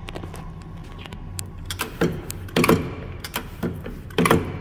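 Steady low hum of the Hardinge DSM-59 lathe's coolant pump running, with a few metallic clunks and rattles about two seconds in and again near the end.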